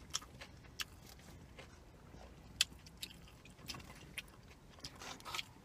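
A person chewing food close to the microphone: soft, irregular mouth clicks and smacks, with one sharper click about two and a half seconds in.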